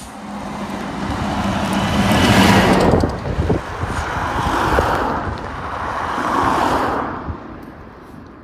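Road vehicles driving past at close range: a lorry goes by first, its engine giving a steady low note, followed by a van and then a car. Each pass swells and fades with tyre noise, and all three have died away near the end.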